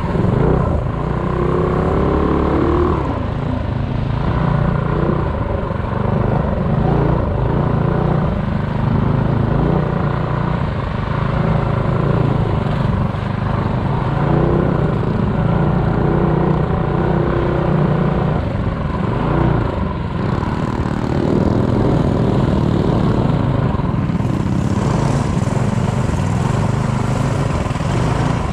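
Small minibike engine running hard in a race, its pitch rising and falling as the throttle opens and closes.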